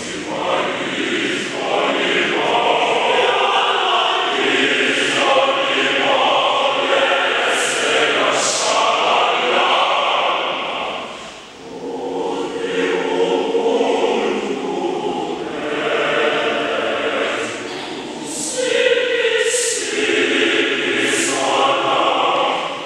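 A choir singing, with a short break between phrases about halfway through and crisp sung consonants cutting through.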